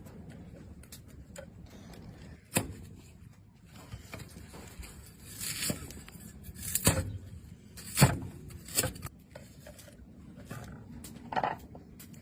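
Scattered sharp knocks and a scraping rustle, about five knocks spread unevenly with the loudest near the middle.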